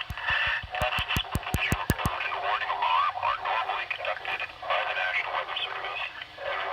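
Tinny, narrow-band speech from a radio's speaker, the kind of spoken message an emergency alert broadcast carries. A quick run of about a dozen clicks sounds in the first two seconds.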